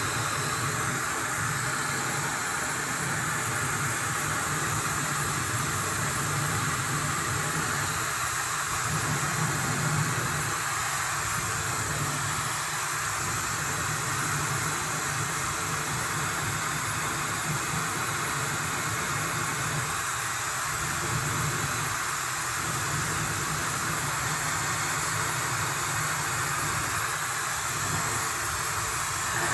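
Laifen hair dryer blowing steadily while drying wet hair: a loud, even rush of air whose low end swells and dips as the airflow shifts.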